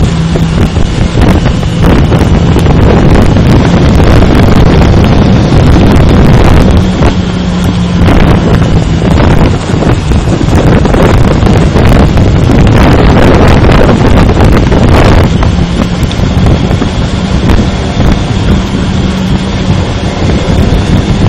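Honda CB400 motorcycle riding at road speed, its engine note steady but shifting pitch a few times, under loud wind buffeting on the microphone.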